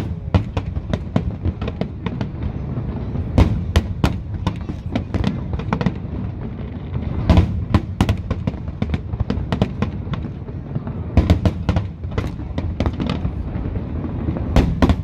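Aerial fireworks display: a continuous low rumble of shell bursts with many sharp bangs and crackles, coming in denser clusters several times.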